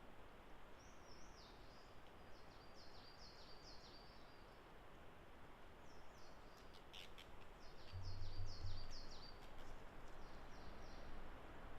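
Songbird singing in runs of short, quickly repeated high notes that slur downward, over a faint woodland background. A few sharp clicks about seven seconds in, then a brief low hum.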